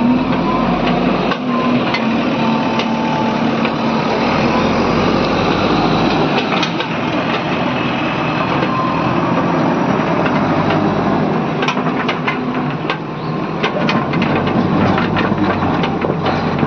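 JCB 3DX backhoe loader's diesel engine running steadily at working revs, with scattered knocks and clanks, more of them in the last few seconds.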